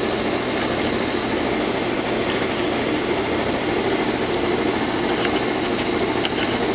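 A lapidary slab saw running, a steady, unbroken motor drone, with a few faint ticks near the end.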